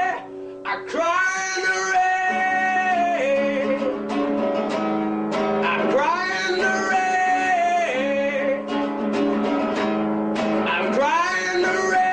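Pop song played live, with guitar accompaniment and a melody line that glides between long held notes over sustained chords. It opens with a brief quieter moment.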